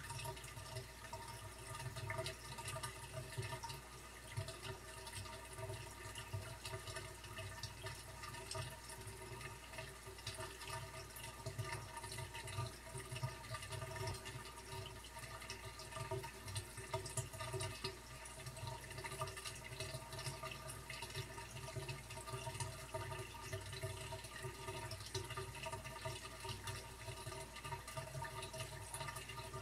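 Fish room ambience: aquarium water trickling and splashing steadily, over a steady low hum.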